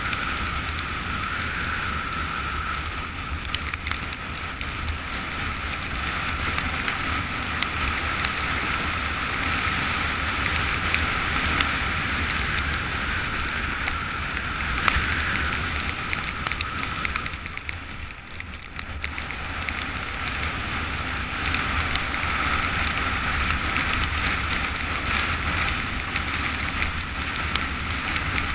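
Rushing wind over a helmet-mounted action camera's microphone during a fast downhill ski run, mixed with the hiss of skis sliding over snow. The rush eases briefly about two-thirds of the way through, then picks up again.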